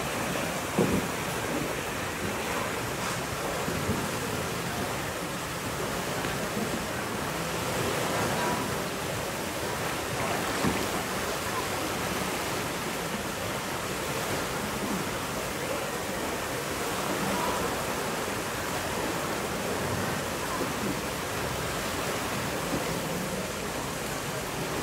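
Fast, turbulent water rushing through a concrete dam outlet channel: a steady, even rush of churning water, with a brief knock about a second in.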